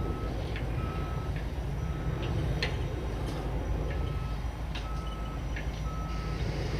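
Backhoe's diesel engine running steadily under a backup alarm that beeps about once a second, with a pause midway. A few sharp metallic knocks sound as it works its way across from one rail car to the next.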